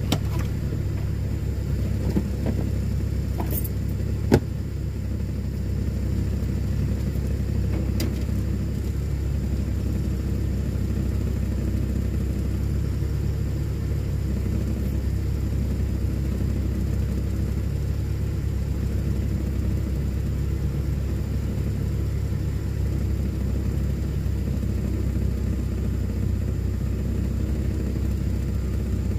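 A steady low rumble, with a few sharp clicks in the first eight seconds, the loudest about four seconds in.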